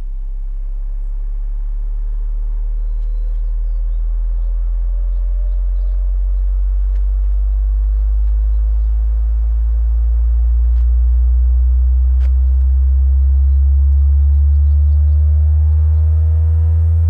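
Subwoofer playing a slow sine-wave sweep: a deep, steady hum gliding smoothly upward from about 33 to nearly 80 hertz, with fainter overtones rising above it and the level climbing slightly as it goes.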